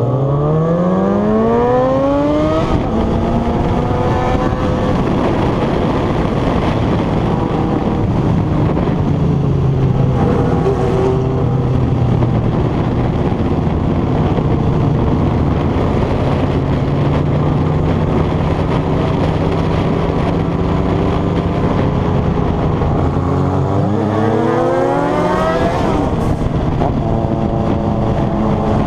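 Inline-four sport motorcycle engines (Kawasaki Z750s and a Yamaha XJ6) under way: revving up hard through the first few seconds, running at fairly steady revs through the middle, then accelerating again about 24 seconds in.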